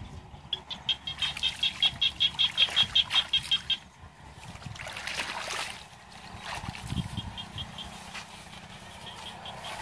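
A bird calling in a fast, even run of high notes, about eight a second, for about three seconds, then in two shorter runs later. A brief rustling noise comes between them, about five seconds in.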